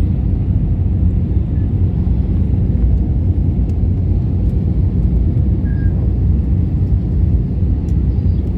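Steady low rumble of an airliner's engines and airflow heard inside the passenger cabin, even and unbroken.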